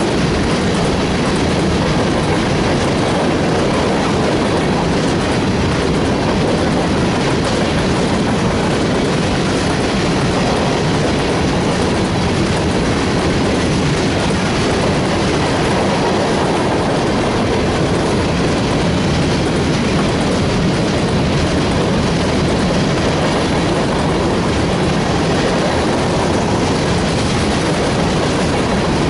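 Freight train of hopper cars rolling past at steady speed, steel wheels clicking over the rail joints.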